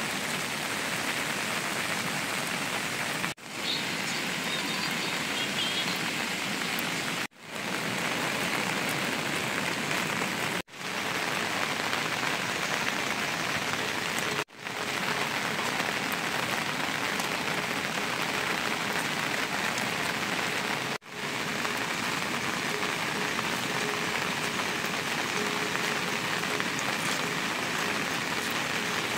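Steady rain falling, a continuous even hiss, that cuts out briefly and fades back in several times.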